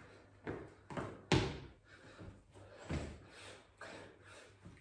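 Hands and feet thumping on a stone tile floor during two-pump burpees, several impacts with hard breathing between them; the loudest lands about a second and a half in.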